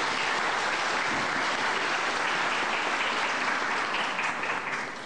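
Large audience applauding, a dense steady clapping that thins out and fades near the end.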